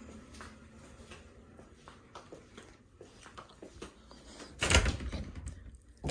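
An interior door being opened, with a short loud rush of noise about two-thirds of the way through and a sharp knock at the very end, after faint scattered ticks and taps.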